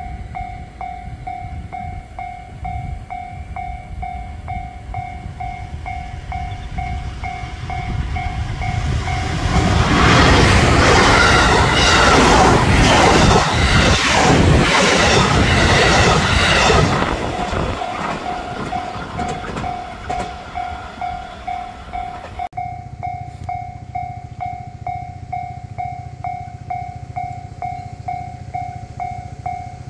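Japanese level-crossing warning bell ringing in an even, repeating kan-kan pattern. About nine seconds in, a train passes over the crossing for about seven seconds, its wheels clattering rhythmically over the rail joints and drowning out the bell.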